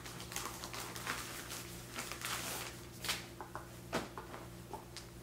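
Plastic packaging crinkling and rustling as pillowcases are pulled out of their bags and unfolded by hand, with a few sharper crackles about three and four seconds in, over a faint steady hum.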